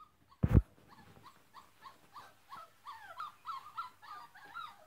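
Dogs in a wire crate whining in short high-pitched yips, about two a second, growing louder over the last few seconds. A single thump about half a second in.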